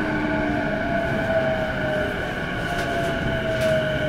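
Electric commuter train slowing into a station, heard from inside the car by the door: steady running noise with a whine that slowly falls in pitch as it brakes.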